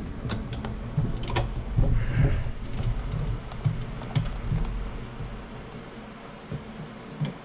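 A leather holster being moved and turned at a heavy leather sewing machine: a few sharp clicks over soft, irregular low knocks and a low rumble that fades away after about five seconds.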